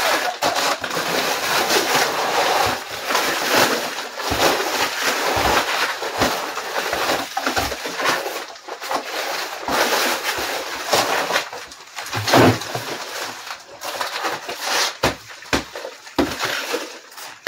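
Horsehair plaster being broken up and scraped at the foot of a wood-lath wall: continuous crunching and scraping of crumbling plaster, with many sharp knocks, the loudest about twelve seconds in.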